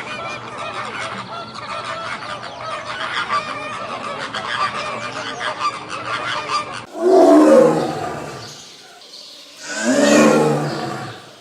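A dense chorus of many overlapping honking bird calls, like a flock of geese or poultry. About seven seconds in it cuts off and gives way to two loud, deep roars from a large animal, a couple of seconds apart.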